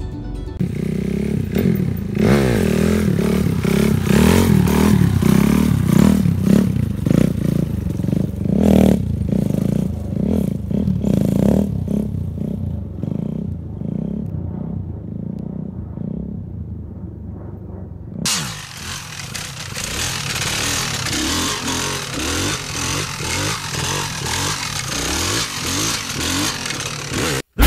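A monster truck's engine running and revving, its pitch rising and falling. The sound changes abruptly about eighteen seconds in, as if cut to another shot, and drops out for a moment just before the end.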